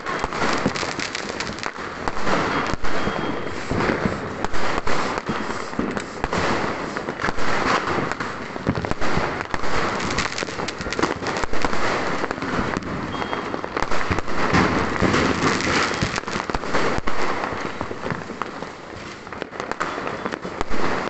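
Many fireworks and firecrackers going off without a break: sharp bangs and crackling bursts, easing a little shortly before the end.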